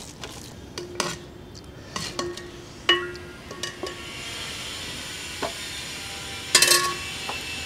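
A steel ladle clinking against a copper cooking pot and a steel plate as curry is served: several separate metallic clinks, each with a short ringing tone, the loudest cluster near the end. A faint steady hiss sits underneath from about halfway.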